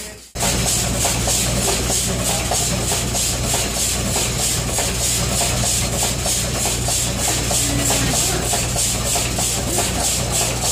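The Virginia V's triple-expansion steam engine running, a steady low hum with an even, rapid rhythmic beat of hiss from its working strokes.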